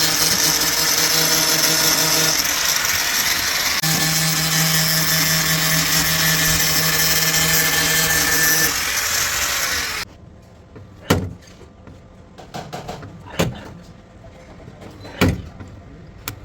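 Electric power tool working on the car's steel body panel: a steady motor tone under a loud, hissing grind. The tone drops out briefly about two seconds in, and the tool stops about nine seconds in. After that come four sharp metal knocks spaced about two seconds apart.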